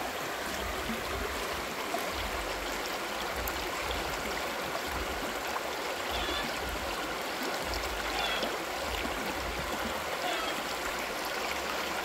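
Shallow rocky stream rushing and gurgling over stones and around boulders, a steady flow of water.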